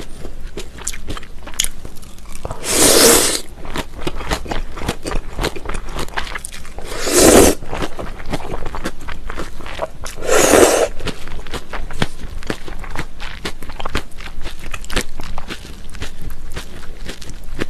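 Close-miked eating of cold raw-fish noodle soup: thin somyeon noodles slurped up three times, each slurp about a second long and loud, about four seconds apart. Wet chewing and crunching of noodles and raw fish runs between the slurps.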